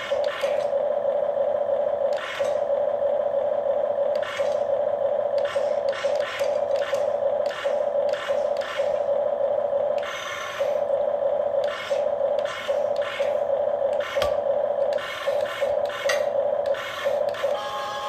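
Huina 1550 RC excavator working under remote control: a steady whine, with many short whirring bursts from its small gear motors as the arm and bucket are moved in quick jabs.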